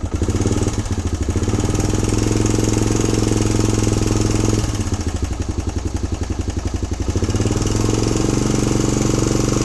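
Suzuki DR-Z125's single-cylinder four-stroke engine idling steadily, its note dipping a little about halfway through and picking back up near the end. It runs much quieter with the exhaust clearly heard, the cam chain rattle gone now that the cam chain tensioner has been reset.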